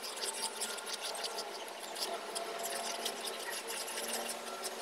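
Wooden spatula stirring coconut cream and brown sugar in a nonstick pan: scraping on the pan and sloshing of the liquid, with many small ticks over a steady hiss. The mixture is being cooked down into a caramel topping.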